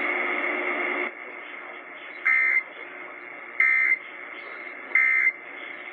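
Emergency Alert System end-of-message data: three short, identical two-tone digital squawks about 1.3 s apart, marking the end of the weather alert. They follow about a second of louder radio hiss and are heard through a radio broadcast.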